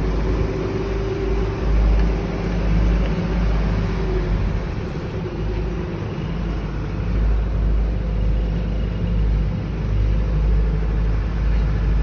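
A steady, deep low rumble with a faint hum above it.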